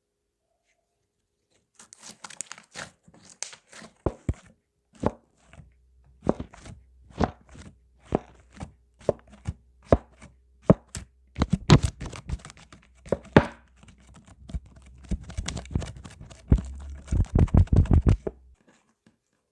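Slime being squeezed and kneaded by hand, giving a run of sharp wet pops and clicks from trapped air, about one or two a second. The pops come thicker and faster near the end, then stop.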